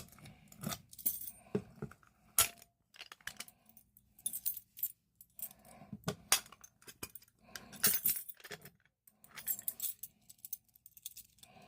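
A bunch of keys jangling and clinking in irregular bursts, with scattered small clicks of handling, as keys are tried to reset a Notifier BNG-1 pull station, which takes two different keys.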